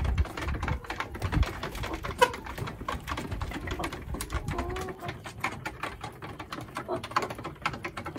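Chickens making soft, short clucks, with many quick sharp taps and clicks among them.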